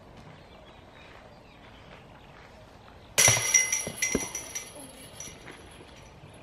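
A disc golf disc striking a chain basket about three seconds in: a sudden metallic clash, then the chains clattering and ringing as they die away over about a second and a half.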